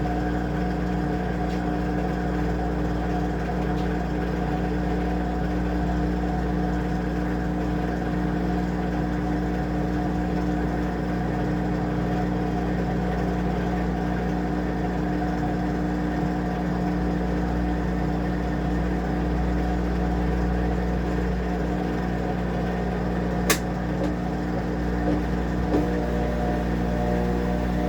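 Washing machine running with a steady motor hum, with a single sharp click about 23 seconds in.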